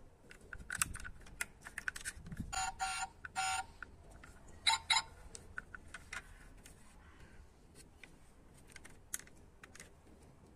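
Small clicks and snaps as the doors and bonnet of a diecast model car are handled and opened by hand. Two pairs of short electronic beeps come through about two and a half and five seconds in.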